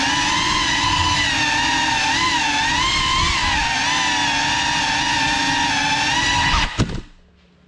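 GEPRC Cinelog 35 cinewhoop's motors and propellers whining, the pitch wavering up and down with the throttle. Near the end a couple of sharp knocks as the quad crashes, and the motor whine cuts off suddenly.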